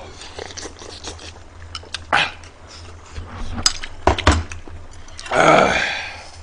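A man eating a mouthful of spicy stew close to the microphone: chewing and mouth sounds with a few sharp clicks, then a loud, harsh throat noise about five seconds in.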